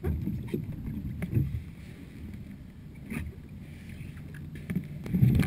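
Water sloshing around a sea kayak's hull as a paddler climbs onto its back deck, with several short knocks and scrapes against the deck, loudest near the end.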